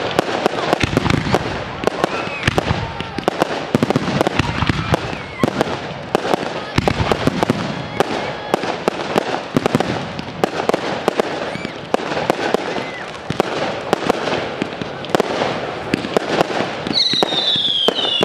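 Fireworks display: a dense, unbroken barrage of bangs and crackling bursts from aerial shells. Near the end, several high whistles fall in pitch over the barrage.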